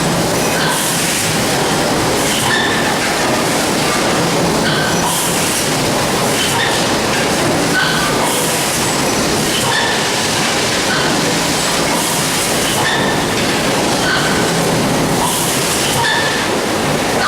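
A steady mechanical running noise with short high-pitched squeaks that recur irregularly about once a second.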